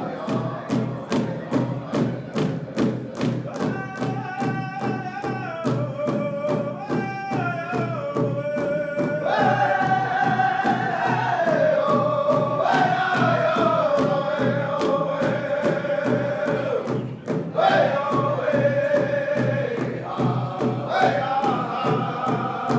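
Powwow drum group: several men strike one large shared drum in a steady beat, roughly three strikes a second, and sing together in high voices. Their phrases step downward in pitch. About 17 seconds in there is a brief break, and a new phrase starts high again.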